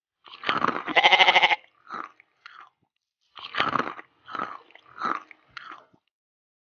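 A goat-like bleat about a second in, then a series of short crunches as fried shell-on shrimp is chewed.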